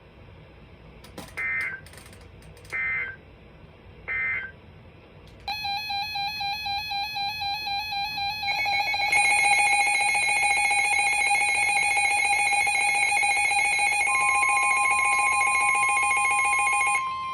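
Emergency Alert System tones. First come three short data bursts, about a second apart: the end-of-message signal after a warning. Then a pulsing alert tone starts, more steady tones join it, and a steady tone near 1 kHz is added about 14 s in, before the tones cut off shortly before the end.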